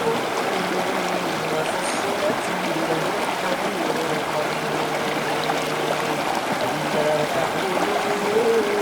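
Steady rush of flowing river water. Underneath it, a faint voice holds long drawn-out chanted notes that step in pitch from time to time.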